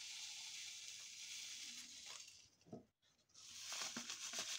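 A steady faint hiss, a brief break, then citric acid crystals poured from a paper packet into a glass of vinegar: a fine, rapid pattering of granules with paper rustle.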